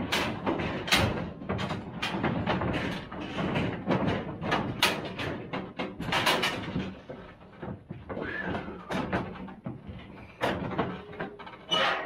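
Cattle being loaded into a metal stock trailer: hooves knocking on the trailer floor and steel panels and gates clanging, many sharp knocks in quick succession, thinning out in the second half.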